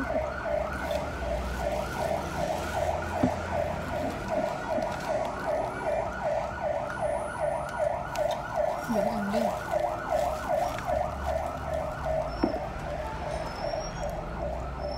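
A siren in a fast yelp pattern, its pitch swinging up and down about three times a second at a steady level.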